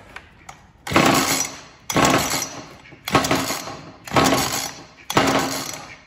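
Ryobi two-stroke chainsaw being pull-started with the choke on: five pulls of the recoil starter cord about a second apart, each a sharp whir that fades. The engine cranks but does not catch.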